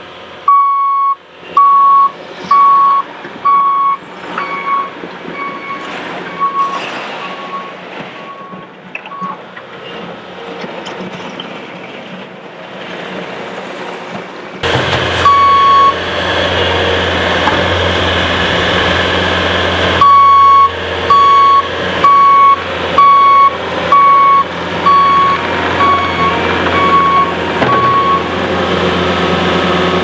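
Backup alarm on a Bobcat T595 compact track loader beeping at about one and a half beeps a second as it reverses, over its diesel engine running. The beeping fades and stops, then after a sudden jump the engine is louder and the alarm beeps again for several seconds near the end.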